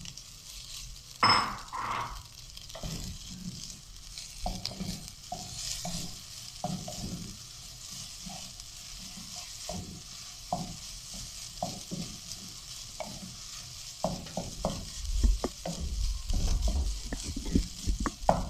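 Spaghetti and sliced vegetables sizzling in a nonstick wok while a wooden spatula tosses them. A steady frying hiss runs under repeated scrapes and taps of the spatula against the pan, with a louder burst about a second in and busier stirring near the end.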